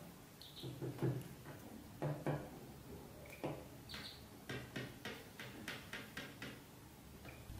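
Ducklings giving a few short, high peeps, mixed with a run of soft taps and knocks on a wooden floor, quickest in the second half.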